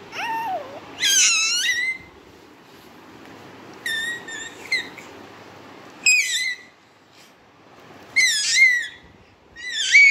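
Baby making high-pitched squeals in short bursts, about six times, each bending up and down in pitch.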